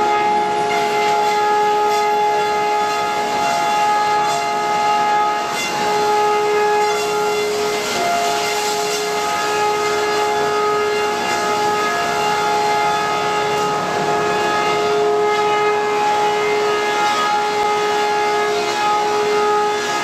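Sawmill machinery running with a steady, high, multi-toned whine over a mechanical noise bed.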